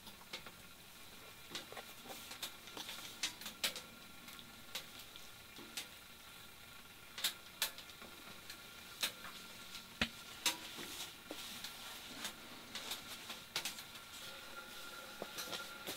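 Wood fire crackling in a small tent stove: irregular sharp pops and ticks over a faint steady hiss.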